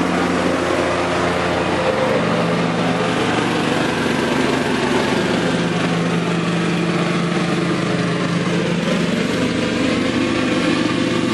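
Case IH riding lawn tractor's small engine running steadily as it mows, its pitch shifting slightly now and then.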